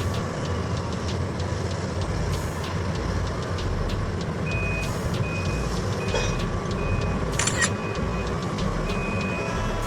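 Heavy mining machinery running steadily with a deep diesel rumble, and from about four and a half seconds in a haul truck's reversing alarm beeping at a steady pace, a little over once a second. A short metallic clank stands out near the middle.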